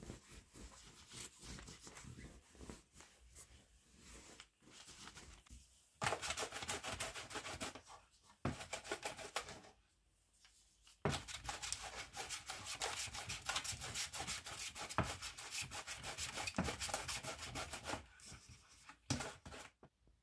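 Sticky lint roller rolled back and forth over cotton pillowcases and a fabric lampshade, the adhesive sheet crackling as it grips and peels off the cloth. Softer strokes at first, then two louder stretches of rolling from about six seconds in, with a brief pause between them.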